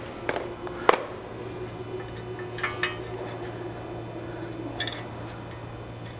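An L-shaped positioning bracket is knocked and clinked into place against a car's front wheel hub: a sharp clank about a second in, then lighter clinks near the middle and toward the end.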